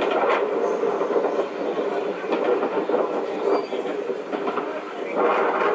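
Fireworks bursting and crackling in a dense, continuous clatter, with sharper bangs at the start, about two seconds in and near the end.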